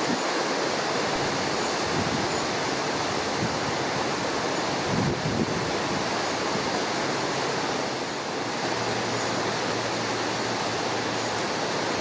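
Waterfall in spate: river water pouring over rocks in a steady, full rush.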